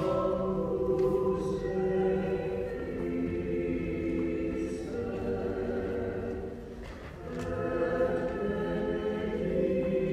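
Choir singing slow, held chords in several voices, with a brief pause about seven seconds in before the next phrase.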